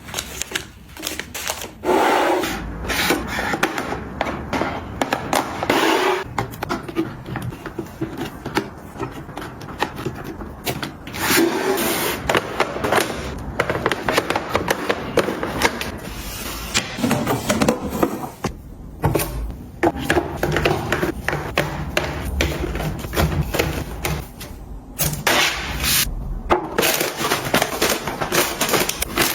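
Household items being handled and set down during cleaning and organizing: a steady run of clicks, knocks and rustling.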